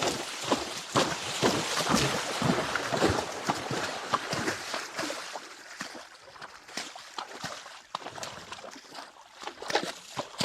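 A horse's hooves splashing through shallow creek water, step after step, in an uneven walking rhythm. It grows fainter a little past halfway, then the strokes come back near the end.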